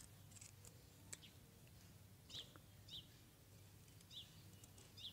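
Faint short bird chirps, four of them spaced about a second apart in the second half, over a few soft clicks and scrapes from a small knife peeling a white radish.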